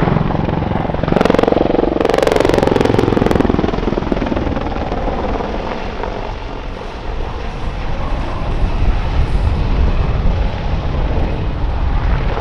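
AH-64D Apache attack helicopter's main rotor and twin turboshaft engines during a flying display. A loud spell of rapid rotor chop, falling in pitch, comes about one to three and a half seconds in, then the rotor noise runs steadily, easing a little mid-way and building again.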